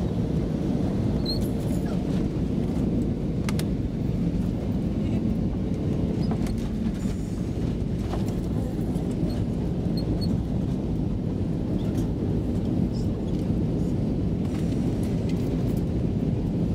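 Steady low rumble of engine and airflow noise inside an Airbus A320 cabin in flight, with a faint steady hum and a few small clicks.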